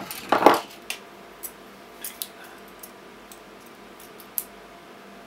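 Pliers pulling nickel connecting strip off the ends of 18650 lithium-ion cells: a sharp snap at the start and a short metallic rasp just after, then scattered light clicks and taps of metal against the cells.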